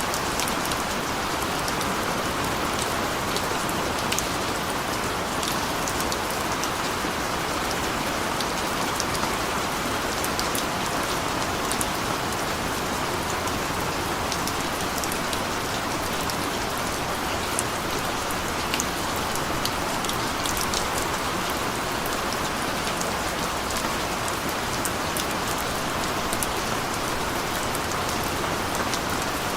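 Steady rain falling on a street, a continuous even hiss scattered with the sharp ticks of individual drops striking hard surfaces.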